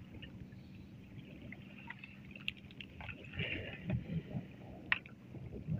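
A fisherman handling a nylon fishing net in a wooden boat: the net rustles and there are small clicks and knocks, with water sounds around the hull, over a steady low hum.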